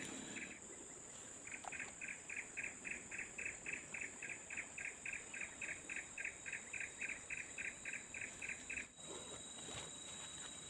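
Faint steady high-pitched insect chirring, with a rhythmic series of short chirps about three or four a second that stops about nine seconds in.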